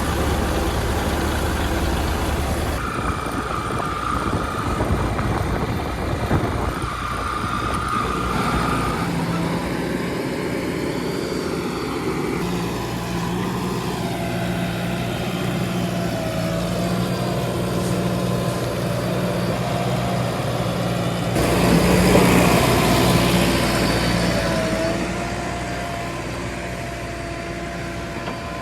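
JCB 3DX backhoe loader's diesel engine running under changing load as it works, its pitch shifting, with a louder surge about three quarters of the way through.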